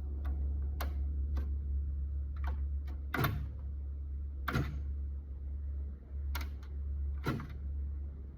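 Electric typewriter being typed on slowly: single sharp key strikes at an irregular pace, about ten in all, three of them noticeably louder, over a steady low hum.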